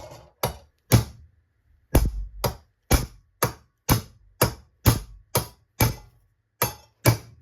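Hammer beating on a screw set in a brass fitting to drive the steel piece inside out of it: about fourteen sharp blows, roughly two a second, with two brief pauses.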